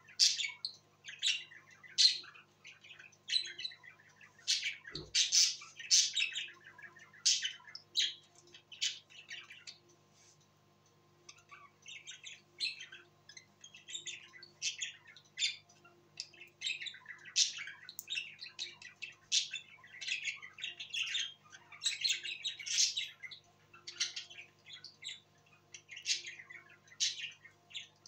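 Caged budgerigars chattering: rapid high chirps and squawks that pause for a couple of seconds about ten seconds in, then pick up again. A single knock about five seconds in.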